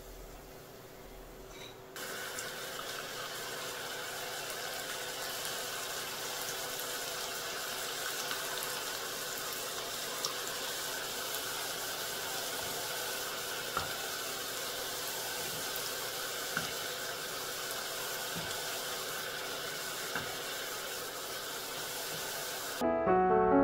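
Potato-dough strands deep-frying in hot oil in a stainless saucepan: a steady sizzle of bubbling oil, stepping up about two seconds in, with a few small ticks. Piano music comes in near the end.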